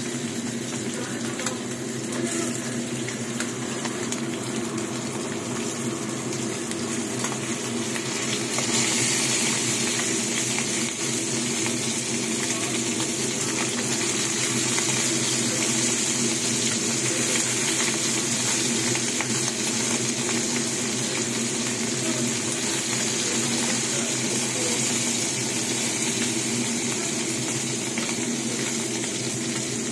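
Small whole sapsap (ponyfish) frying in hot oil in a pan, a steady sizzle that grows louder about eight seconds in.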